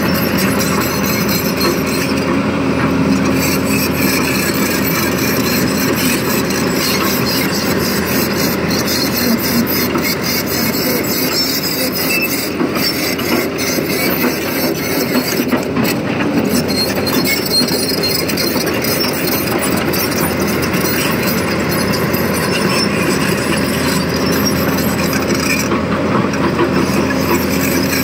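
Tata Hitachi Zaxis 220LC hydraulic excavator working: its diesel engine runs steadily under load, with a dense metallic clatter and rattle all through.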